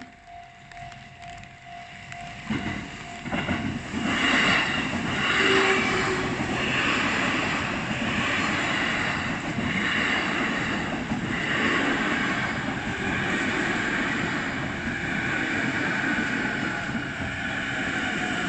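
Level-crossing warning bell ringing in an even pulse. From about three seconds in, an Ome Line train passes over the crossing, running loudly and steadily with a rhythmic clatter of wheels over the rail joints.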